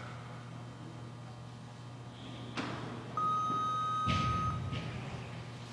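Weightlifting arena sound: a sharp knock, then a steady electronic beep lasting about a second and a half, with a low rumble of crowd noise rising under it about four seconds in.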